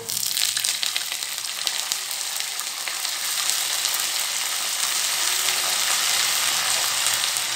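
Fresh, washed curry leaves dropped into hot oil with frying peanuts: the oil bursts into a sizzle the moment they go in and keeps on sizzling steadily, a little louder from about three seconds in.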